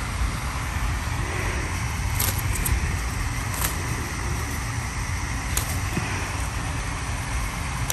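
Steady low outdoor background rumble, with three light clicks about two, three and a half, and five and a half seconds in.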